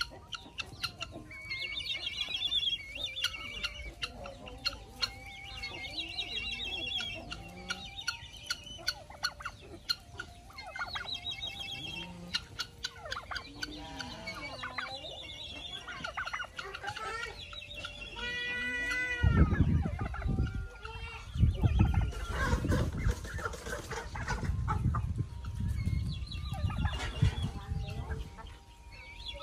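Mixed flock of domestic turkeys, helmeted guineafowl and chickens calling, with many short clucks and chattering calls, and one louder, longer call about two thirds of the way through. A low rumbling noise runs under the last third.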